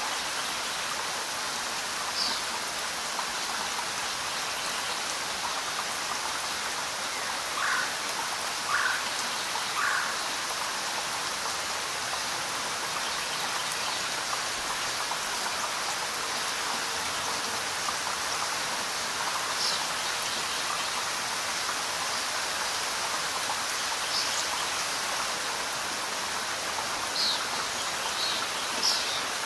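Steady rain falling on leaves and surfaces, an even hiss. A few brief, higher-pitched sounds stand out over it, with a cluster near the end.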